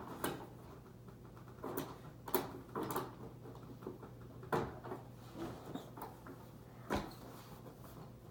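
Scattered clicks and knocks, about five, from working the height adjustment of a Hoover Preferred Commercial upright vacuum by hand, over a faint steady hum.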